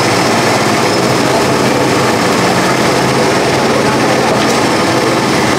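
Steady, loud background noise with a faint low hum running through it, unbroken and unchanging in level.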